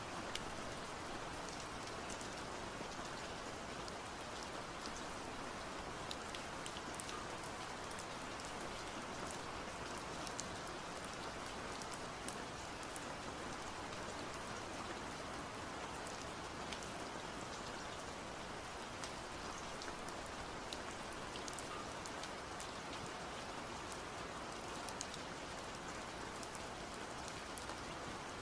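A steady hiss like light rain, with many small scattered crackles and clicks.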